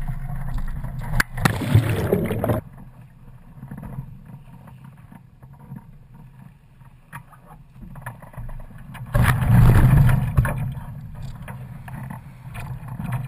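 Wind buffeting a camera high on a sailing catamaran's mast, with water rushing past the hulls: a loud gusty rush for the first two or three seconds, much quieter in the middle, loud again about nine seconds in, with scattered small knocks from the rig.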